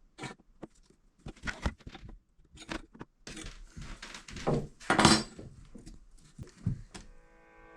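Irregular knocks, taps and clatter of pallet-wood boards and tools being handled during assembly, with the loudest knocks about five seconds in.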